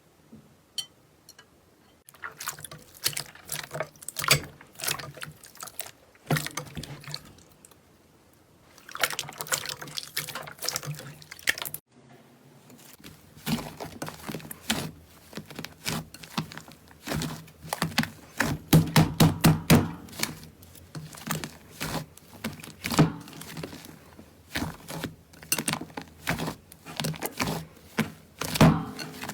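Slime being squeezed and pressed by hand: quick sticky clicks and squelches in runs, broken by short pauses, and thickest a little past the middle.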